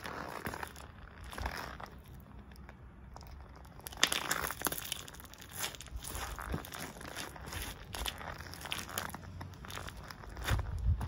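White Nike Air Force 1 Mid sneakers stepping on and grinding bananas against concrete: peel and flesh squashing, tearing and crunching underfoot in irregular steps. The sharpest, loudest stomp comes about four seconds in.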